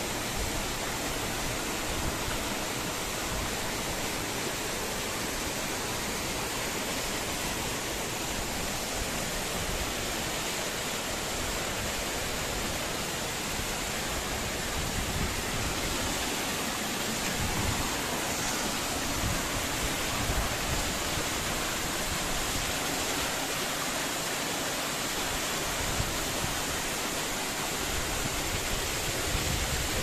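Rushing water of a waterfall and the cascading rocky stream below it, a steady, unbroken rush of white water.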